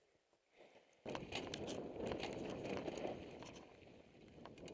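Mountain bike riding over a dry, rocky dirt trail: tyres crunching on gravel and dirt with a scatter of rattling clicks. The sound starts suddenly about a second in and eases off near the end.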